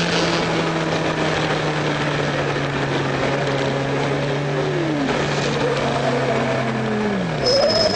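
Triumph racing motorcycle's engine running at steady high revs, with wind rushing over the microphone at speed; near the end the revs fall away. A thin high whine starts just before the end.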